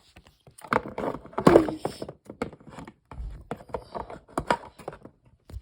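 Plastic toy packaging being handled and pried at: an irregular run of clicks, crackles and rustles, busiest about a second and a half in.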